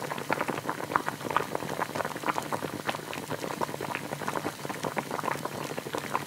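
Steam iron hissing, with a dense, steady crackle of spitting and bubbling steam as it is pressed along a quilted fabric hem.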